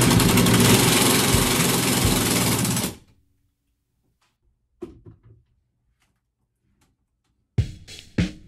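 Cordless drill/driver running steadily while driving a mounting screw into the side of a recessed medicine cabinet, stopping about three seconds in. Background music with a regular drum beat comes in near the end.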